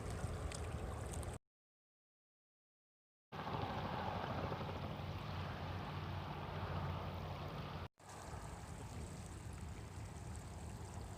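Water rushing and splashing past a moving boat, over a steady low rumble. It breaks off into dead silence for about two seconds near the start and drops out briefly about eight seconds in.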